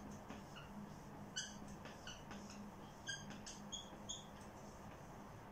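Dry-erase marker squeaking faintly across a whiteboard in a run of short strokes as a word is written.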